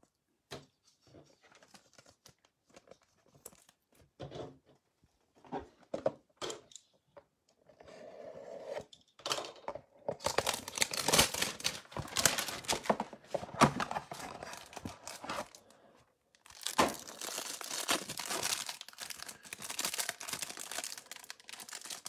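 Light handling clicks of cards and cardboard, then a Select basketball hanger box's clear plastic wrapper being torn open and crinkled, in two long stretches with a short pause about 16 seconds in.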